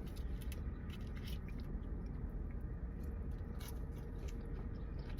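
A person chewing and biting fast food, with scattered short crunchy clicks over a steady low rumble.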